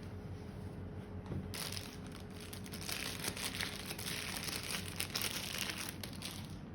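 Packaging crinkling as it is handled, a dense crackle that starts about a second and a half in and stops just before the end.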